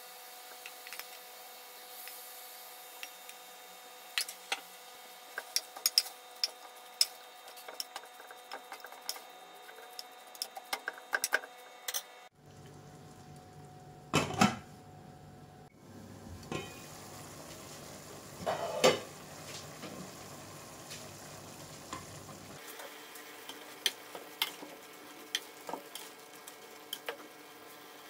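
A cooking utensil clinking and scraping against a pan as food is stirred, with a faint sizzle. The clicks come thick and fast for the first twelve seconds, then give way to a few louder, separate knocks.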